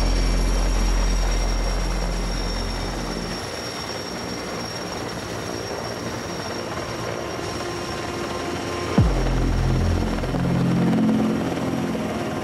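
Steady helicopter rotor and turbine noise, with background music mixed in. A sharp falling swoop with a thump comes about nine seconds in.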